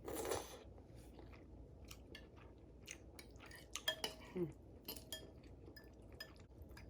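Someone eating a bowl of noodles with shrimp and sausage: quiet chewing with scattered clicks of a utensil against the dish, and a short noisy burst right at the start.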